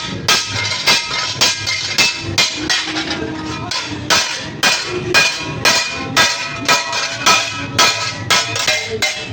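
Blacksmith's hammer striking steel on an anvil in a steady rhythm, about two to three blows a second, each with a short metallic ring, while forging a grass-cutter blade.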